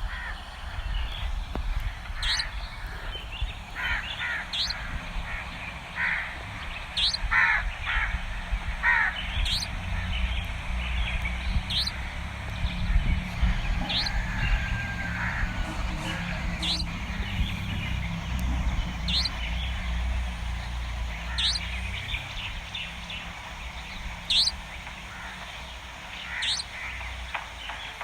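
Crows cawing a few times, mostly in the first third, over a small bird's short high chirp that repeats about every two seconds, with a low steady rumble underneath.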